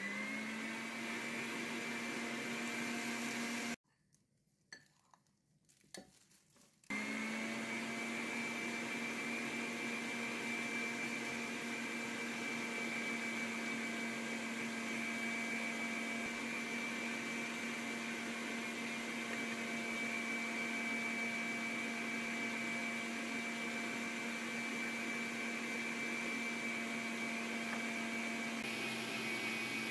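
Electric stand mixer motor running steadily as its beater mixes flour into cake batter, with a steady hum and a higher whine. It stops about four seconds in and starts again about three seconds later.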